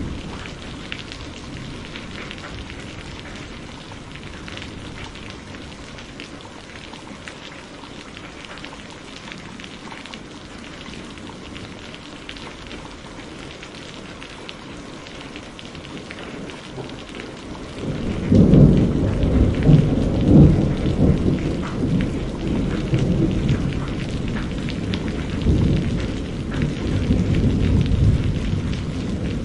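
Steady rain falling, hissing evenly. About two-thirds of the way through, a long, low roll of thunder comes in and rumbles on, swelling several times before easing near the end.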